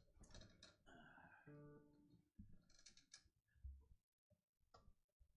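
Faint, scattered guitar notes plucked quietly, with one note held about a second and a half in, among light clicks and handling noises.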